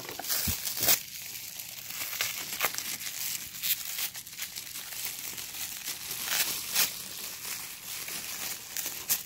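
Tissue gift-wrap crinkling and rustling in a small child's hands as a small present is unwrapped, with irregular short crackles and a little tearing.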